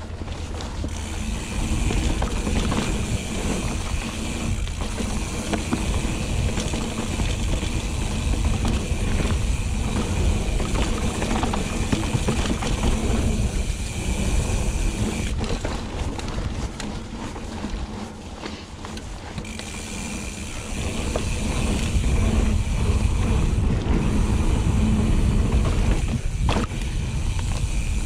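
Mountain bike rolling fast over a dirt singletrack trail: a constant rumble and rattle of tyres and frame over the ground, with a steady high buzz from the Hope Pro 4 rear hub freewheeling as the rider coasts. The buzz stops for a few seconds past the middle, when the rider pedals, and a sharp knock comes near the end.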